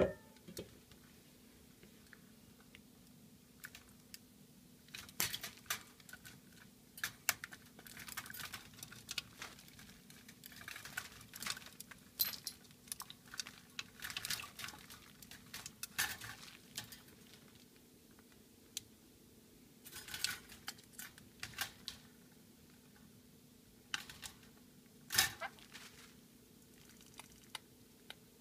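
Black-capped lory bathing in its water dish, beating its wings in the water in splashy bouts of a second or two with short pauses between. A faint steady hum runs underneath.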